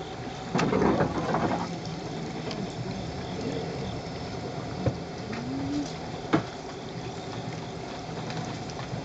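Small tour boat's motor running steadily on the moat, with a louder clatter about half a second in and a couple of sharp knocks later.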